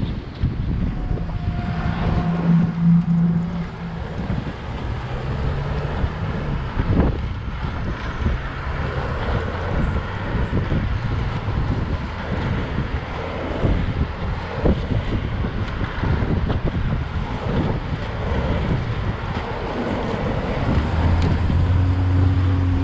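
Wind rushing over the microphone of a camera carried by a moving inline skater, over street traffic, with a vehicle's low engine hum rising near the end.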